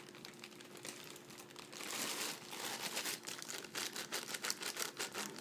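Packaging being handled, crinkling and rustling in quick irregular bursts that pick up about two seconds in.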